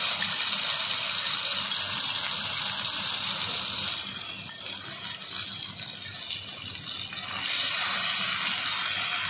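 Hot oil sizzling in a kadai as a wet paste of ground chilli, ginger and cumin is scraped into it over frying nigella seeds. The sizzle eases about four seconds in and picks up again near the end as a spatula stirs it, with a single click around the middle.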